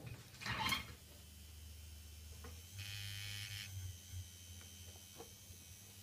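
Rotary tattoo machine (Dragonfly) running, its small motor giving a faint steady low hum that swells into a buzz for just under a second about three seconds in. A short handling rustle comes near the start.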